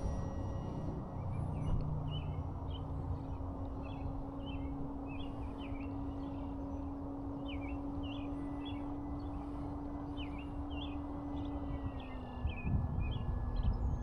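E-flite Carbon-Z Cessna 150T's electric motor and propeller whining at a steady pitch overhead, dropping slightly in pitch about twelve seconds in as it throttles back or passes. Birds chirp repeatedly throughout.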